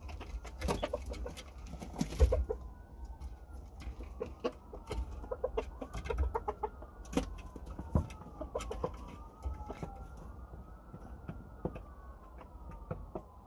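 Red junglefowl hybrid chickens clucking softly, with short clicks from the birds moving on the perch and bedding. Behind them a siren wails, its pitch rising and falling over and over.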